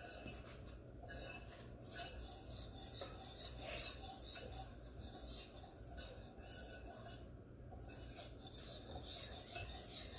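Whisk beating cake batter in a mixing bowl: a continuous scraping and rubbing against the bowl, with uneven little surges.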